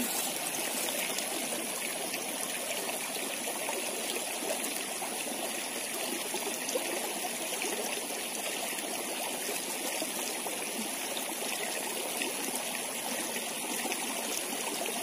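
Shallow stream flowing and trickling steadily over its muddy bed.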